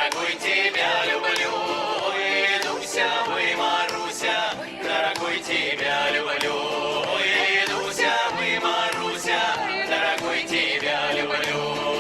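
A choir singing a Russian folk song, several voices together.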